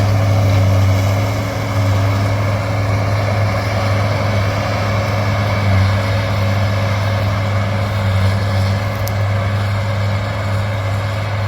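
John Deere 328D skid steer's diesel engine running steadily under throttle, a constant low drone.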